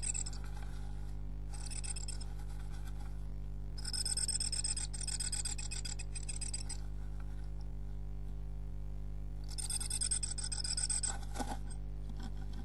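A tit working in its nest box during nest building, making four rasping, scratchy bursts of a few seconds each. A steady electrical hum runs underneath.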